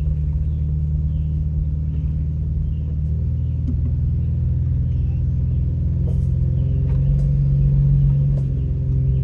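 Vehicle engine droning low and steady, heard inside the cabin while driving an off-road trail, swelling slightly about seven seconds in, with a few faint knocks and rattles.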